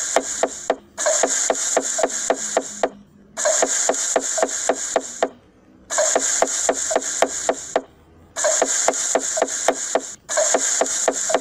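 Cleaver chopping rapidly on a wooden cutting board, about five chops a second. The chopping comes in runs of about two seconds with short pauses, repeating evenly like a looped sound effect.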